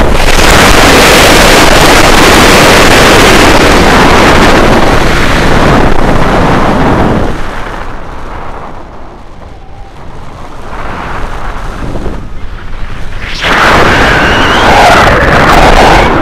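Heavy wind rushing and buffeting over a harness-mounted camera microphone as a paramotor pilot flies a SAT spin, loud enough to saturate. The rush eases off for several seconds in the middle and comes back at full force about three seconds before the end.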